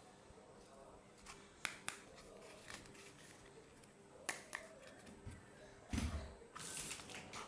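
Light clicks and taps of small plastic miniature toys being handled and set down, with a soft thump about six seconds in and a brief rustle just after.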